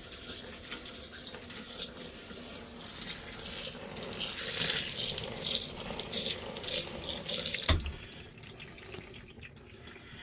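Water running down through wet clothes in the spin basket of a portable twin-tub washing machine, rinsing them. It stops with a sharp knock about three-quarters of the way through, leaving fainter water sounds.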